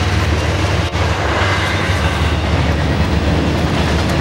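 Freight train of autorack cars rolling past, with a steady low rumble and the noise of steel wheels on rail; the sound breaks off briefly about a second in.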